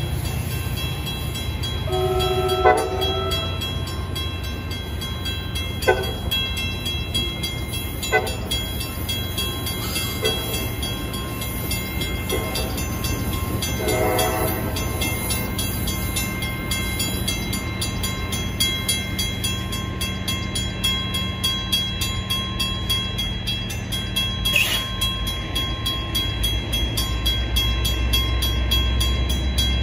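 Metra commuter train of bilevel gallery cars rolling away through a grade crossing with a steady rumble. Its horn gives a short chord-like blast about two seconds in.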